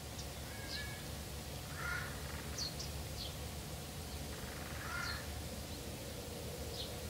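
Faint crow caws, two short calls about three seconds apart, with scattered high chirps of small birds over a low steady background rumble.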